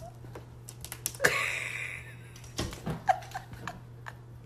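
A cat's claws clicking and scratching on a window frame and screen as it climbs, in scattered light taps with a longer rustling scrape about a second in and a short faint squeak near the end.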